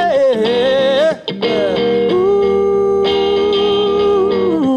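A male singer with guitar accompaniment sings the word "loneliness," then holds one long steady note that slides down and fades near the end.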